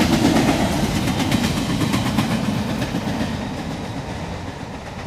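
Empty intermodal freight cars (a baretable train) rolling past at a grade crossing, their wheels clacking over the rail joints. The sound fades steadily as the end of the train goes by, and the clacking thins out after about three seconds.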